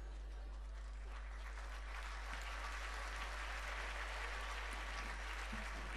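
Audience applauding, swelling after about a second and dying away near the end, over a steady low hum.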